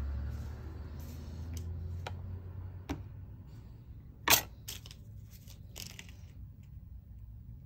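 A few light clicks and taps of small tools and phone parts handled on a repair bench, the sharpest a little past the middle, over a low rumble that fades during the first couple of seconds.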